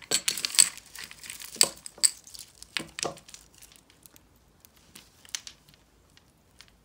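Beaded necklace strands and a pendant clicking and rattling as hands sort through a tangle of jewellery, busiest in the first three seconds, then a few soft clicks as a clasp is handled.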